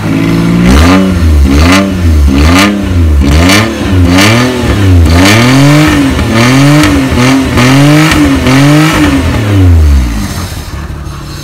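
Maruti 800's three-cylinder petrol engine revved in about a dozen quick blips, just under one a second, through a custom exhaust with no muffler fitted yet, then dropping back to idle near the end.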